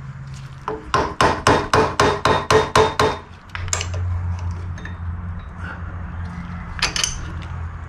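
About ten quick hammer taps, roughly four a second, on the spindle adjusting tool of a Millrite MVN vertical mill. They drive the spindle bearing adjusting nut clockwise to set the bearing preload. After them a low steady hum sets in, with a couple of sharp clicks near the end.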